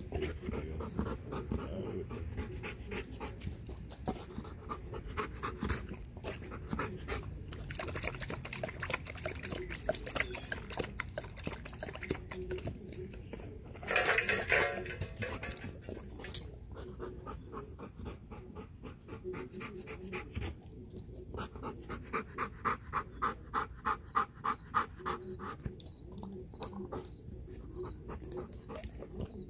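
Belgian Malinois panting heavily and fast, close to the microphone, at about three breaths a second at its strongest, winded from exercise. About halfway there is a brief louder rush of noise.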